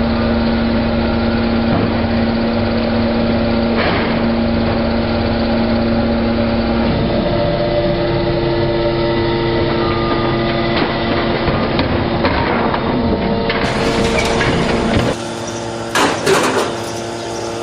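Hydraulic scrap metal baler running: the steady hum of its hydraulic power pack, whose pitch shifts about seven seconds in, with metallic clunks of scrap and moving parts, more frequent near the end.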